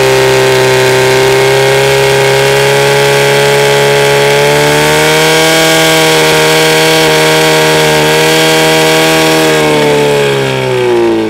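Firesport portable fire pump engine running flat out, pumping water through the hose lines to the spraying nozzles. Its pitch steps up slightly about halfway and falls away near the end as the run finishes.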